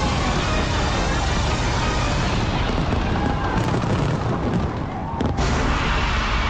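A large aerial fireworks display going off in dense, continuous volleys of bangs and crackles, with music mixed in underneath; the sound briefly dips and breaks about five seconds in.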